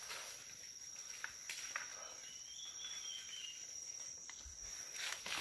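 Forest insects, cricket-like, keeping up a steady high-pitched drone, with a few soft clicks and a faint brief chirp about halfway through.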